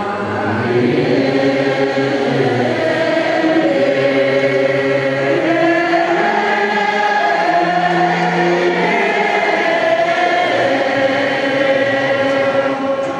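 A large crowd chanting a Buddhist mani mantra together, a slow melodic chant of many voices in unison with long held notes that step from pitch to pitch.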